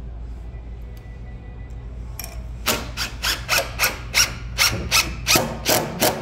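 DeWalt cordless impact driver driving a screw through a pipe flange into a pine shelf board, in a quick series of short bursts about four a second, starting a little before halfway.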